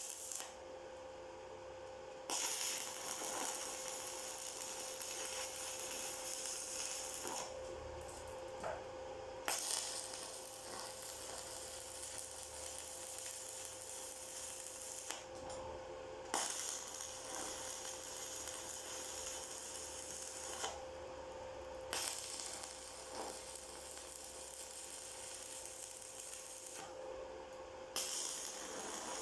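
Electric arc welding: the arc crackles and sizzles in runs of several seconds, stopping and restarting about five times, over a steady hum.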